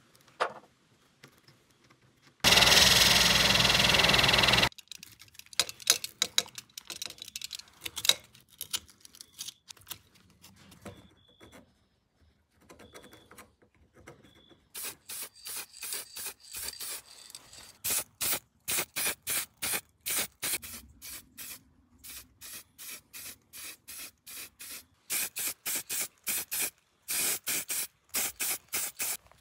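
Aerosol spray can giving many short bursts, about two a second in groups, spraying primer and paint onto the soldering iron parts from about halfway on. Before that comes faint scratching from a small screwdriver scraping filler out of the holes in the iron's barrel, and a loud hiss of about two seconds near the start.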